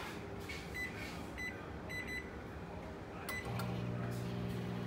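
Frigidaire over-the-range microwave oven being set for nine minutes: a few short keypad beeps, then about three and a half seconds in it starts running with a steady low hum.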